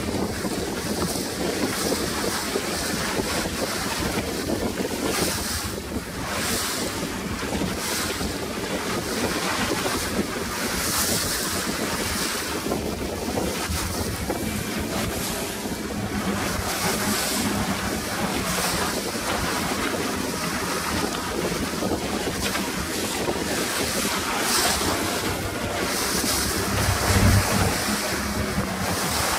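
Strong wind buffeting the microphone over the rush of choppy water and breaking waves, about 25 knots of wind. A heavier low bump near the end.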